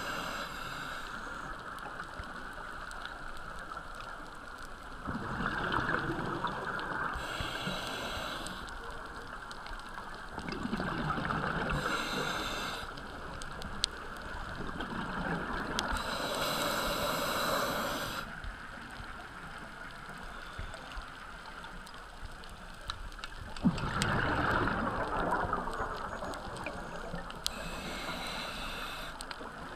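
Scuba diver breathing through a regulator, muffled by the underwater camera housing. Exhaled bubbles gurgle in bursts of about two seconds, roughly every five to six seconds, with shorter hissing breaths in between.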